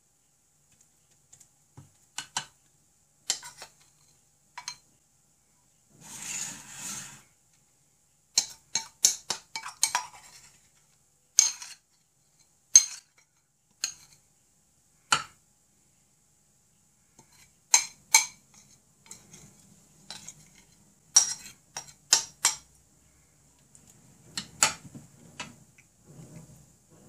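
Metal spoon scraping and clinking against a glass mixing bowl while scooping out sticky flake-and-honey dough: irregular sharp clinks, with a longer scrape about six seconds in.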